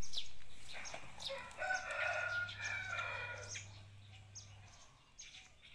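A rooster crowing: one drawn-out, pitched call starting about a second in and lasting roughly two seconds, with a few faint clicks around it.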